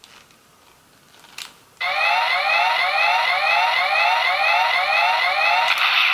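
Hybrid Magnum toy blaster's built-in speaker playing an electronic siren sound effect, starting about two seconds in as a string of rising sweeps, just under two a second, thin as from a small toy speaker. Near the end it turns into a brighter, steadier tone.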